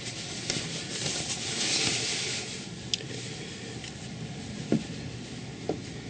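Steady outdoor hiss that swells louder during the first couple of seconds, with a few small knocks and clicks, the loudest nearly five seconds in.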